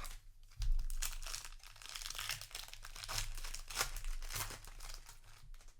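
Foil wrapper of a Magic: The Gathering set booster pack being torn open and crinkled in the hands, an irregular crackling that starts about half a second in.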